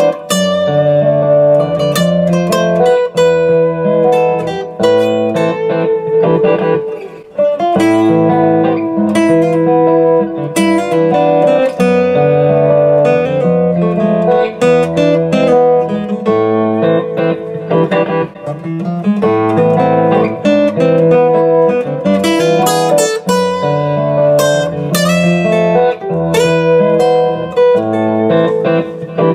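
Koa dreadnought steel-string acoustic guitar played with a flatpick, picked notes and chords ringing one after another.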